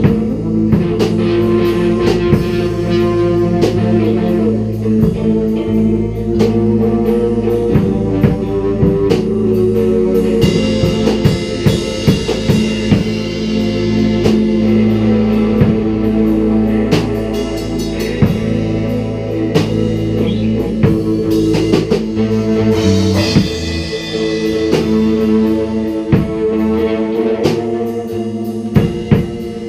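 Rock trio of electric guitar, bass guitar and drum kit playing an improvised, blues-tinged psychedelic jam: held guitar and bass notes over continuous drumming.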